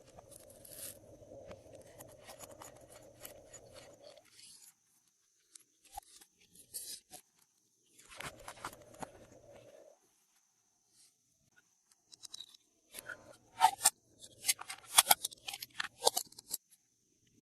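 Glossy slime being squished and mixed by hand, with sticky crackling and popping clicks that come in bursts with short pauses between them. The clicking is loudest and densest near the end.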